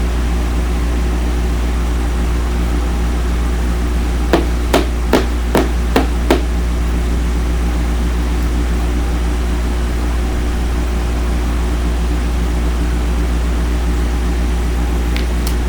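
Six quick, sharp taps or knocks over about two seconds, about four seconds in, over a steady low electrical hum.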